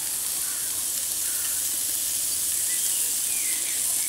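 Mushrooms and meat sizzling steadily as they fry in an aluminium box pan over a campfire, the sizzle dropping away at the very end.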